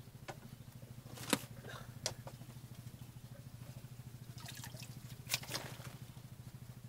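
A small engine running steadily with a low, fast, even throb. A few short, light clicks come over it.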